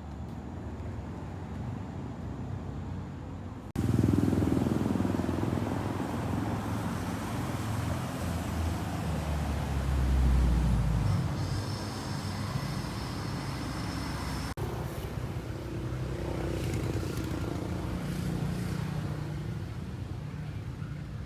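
Low, steady rumble of street traffic and vehicle noise, growing louder for a moment around ten seconds in. It changes abruptly about four seconds in and again near fifteen seconds.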